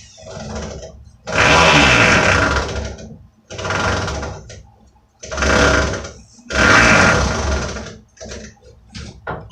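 Handheld power drill run in four bursts of about a second each, driving screws into the workbench's wooden braces.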